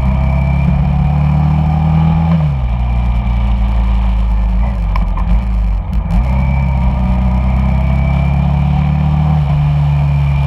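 Honda Shadow cruiser's V-twin engine running under way, heard from the bike: the engine note climbs, falls sharply about two seconds in, dips again past the middle, and falls once more near the end.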